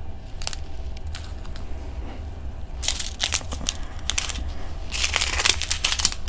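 Small clear plastic bags of diamond painting drills crinkling and rustling as they are handled and shuffled. There are scattered light clicks, with busier bursts of crinkling about three seconds in and again around five seconds in.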